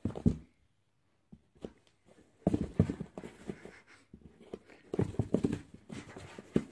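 A pet inside a cardboard box knocking and thumping against the cardboard as it paws out through a slot. Short clusters of knocks come about two and a half seconds in and again about five seconds in.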